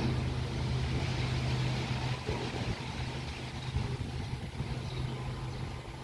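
Strong gusty wind rushing through the trees and leaves, buffeting the microphone as a low rumble that swells and eases.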